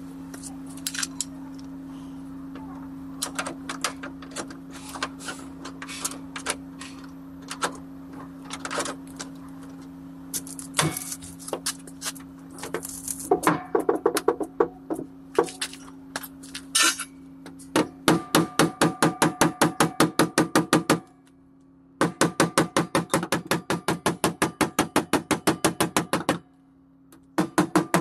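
Hammer rapidly tapping the dented steel door and sill panel while a multi-finger dent puller holds the welded pull wire under tension, working the crease back out. It starts as scattered taps over a steady low hum, then settles into even runs of about five strikes a second with two short breaks.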